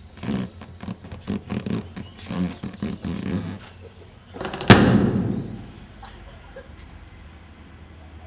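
A person grunting and straining in short bursts while forcing an overstuffed suitcase shut. About four and a half seconds in comes one sudden, loud explosion bang that rumbles away over a second or so: the overpacked suitcase bursting.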